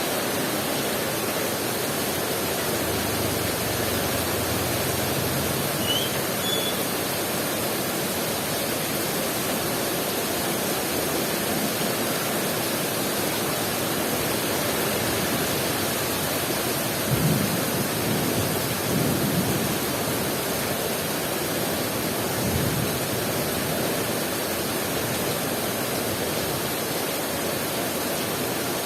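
Heavy rain pouring steadily, a dense even hiss. A few brief low thuds come about two-thirds of the way through.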